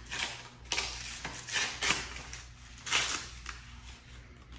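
Wrapping paper being handled and opened by hand, rustling in several short bursts.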